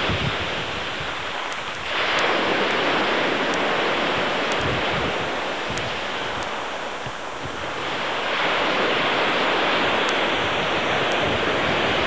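Lake surf: waves breaking and washing up on the shore, swelling loudly about two seconds in and again about eight seconds in.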